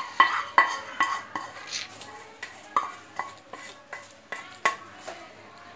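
A wooden spatula scrapes hot caramel out of a pan into a pot of kheer, knocking repeatedly against the cookware. There are about a dozen sharp knocks, roughly two a second, each with a brief metallic ring.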